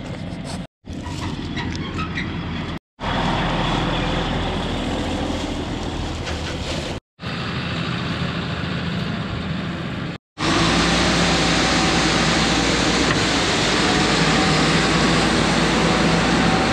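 Heavy vehicle engine running steadily, in several short stretches broken by sudden brief silences, louder in the last stretch.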